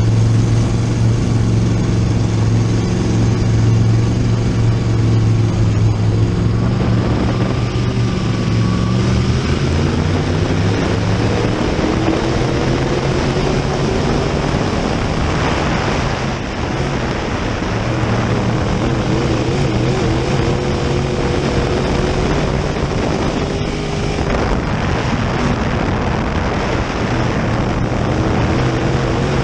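Open-wheel modified dirt race car's V8 engine heard from inside the cockpit under racing load. It holds a steady low pitch at first, then climbs about ten seconds in and rises and falls as the driver works the throttle.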